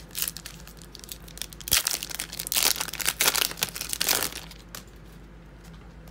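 Foil trading-card pack wrapper being torn open and crinkled by hand: a run of sharp crackles, loudest in the middle, that stops about five seconds in.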